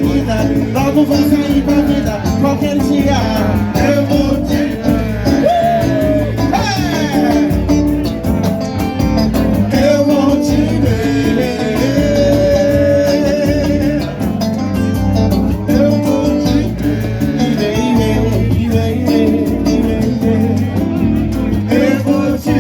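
Live band playing, with a singing voice over guitar, bass and drums.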